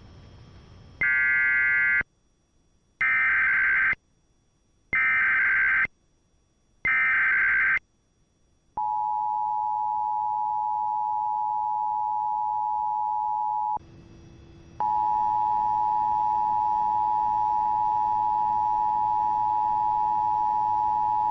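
Emergency Alert System tones. First come four one-second bursts of screeching SAME header data tones, about a second apart. Then the two-tone EAS attention signal (853 and 960 Hz) sounds steadily for about five seconds, breaks off for a second, and starts again.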